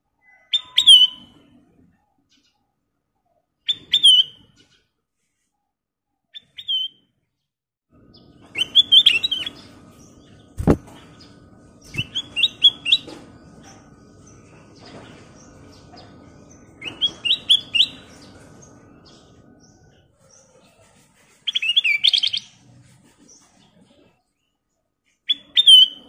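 Ruby-throated bulbul (kutilang emas) singing short, bright chirping phrases every few seconds. From about eight seconds in to about twenty seconds a low rumble sits underneath, with two sharp clicks around eleven and twelve seconds.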